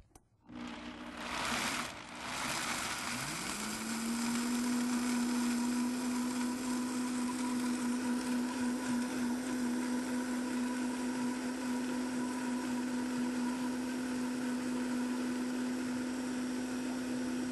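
Countertop blender motor starting up and coming up to speed about three seconds in, its pitch rising, then running steadily as it blends cashews, water and sesame seeds into a sauce.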